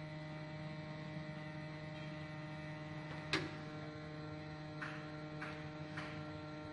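Steady electrical mains hum, a low buzzing drone made of several steady pitches. One sharp click comes about three and a half seconds in, and a few faint clicks follow near the end as the oscilloscope's rotary volts/div switch is turned.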